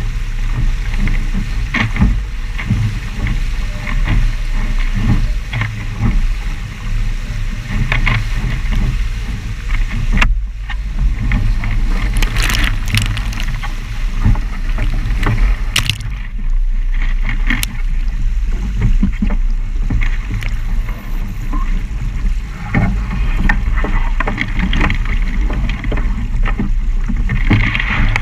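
Wind buffeting the hull-mounted camera's microphone over water rushing past a Musto Skiff's hull at speed, with frequent short slaps and splashes of spray, thickest in the middle.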